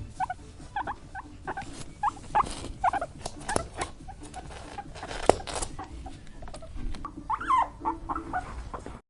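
A small animal making short, repeated high squeaks or chirps, with scattered clicks and knocks among them and a sharp click about five seconds in.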